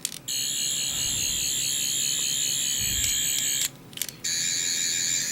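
Toy 11th/12th Doctor sonic screwdriver playing its electronic sonic sound effect through a small speaker: a high, warbling tone, triggered twice with a short break between.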